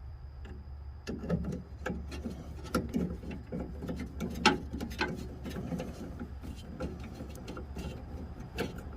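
Irregular metallic clicks and taps of fasteners being handled and threaded by hand, starting about a second in, over a steady low hum.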